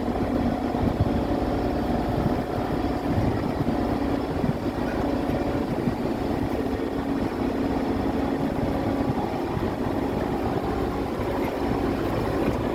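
RTV utility vehicle's engine running steadily, with an even drone and no change in speed.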